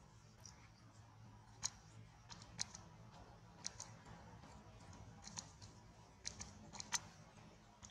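Faint, scattered crackles and clicks of dry leaf litter as a baby macaque handles the leaves around it, about a dozen sharp ticks at irregular intervals over a low steady background hum.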